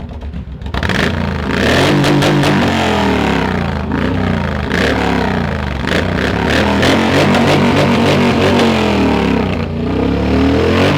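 Motorcycle engine revved hard over and over for maximum loudness, its pitch climbing and falling in waves. It starts quieter, goes loud about a second in, and eases briefly near the end before rising again.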